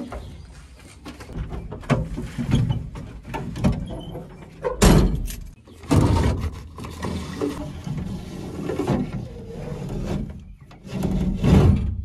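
Knocks and clunks from a Tata truck's cab door and fittings as someone climbs in and works the door and its window crank, with one loud bang about five seconds in.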